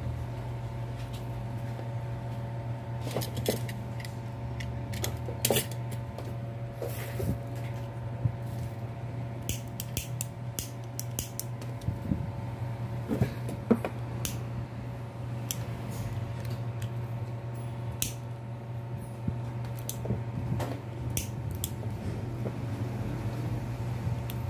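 Scattered small clicks, taps and rustles of hands handling wires and small tools on a workbench, over a steady low hum.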